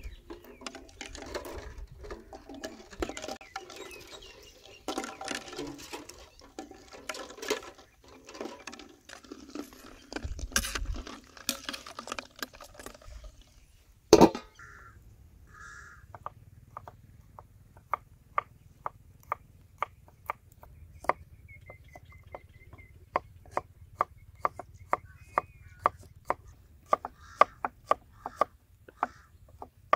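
Water sloshing and things knocking in an aluminium pot as balut eggs and aromatics go in. About halfway through, the metal lid is set on the pot with a sharp clank, the loudest sound. Then a cleaver chops garlic on a wooden board in steady strokes, about two a second, quickening near the end, with faint bird chirps.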